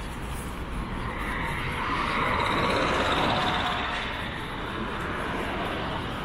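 Road traffic passing on a busy street. One vehicle goes by close, its rushing tyre-and-engine noise swelling about two seconds in and fading by about four, over a steady traffic rumble.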